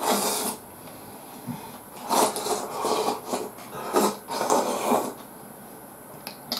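Slurping miso soup from a bowl held to the mouth: a noisy slurp right at the start, then several more short slurps and sips between about two and five seconds in.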